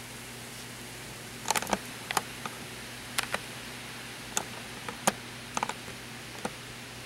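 Irregular sharp clicks and taps of hands handling a camera, starting about a second and a half in, over a steady hiss with a faint low hum.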